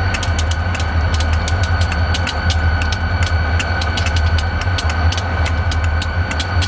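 Diesel-electric freight locomotive idling while standing: a steady low engine rumble with a steady high whine over it and a rapid, irregular ticking.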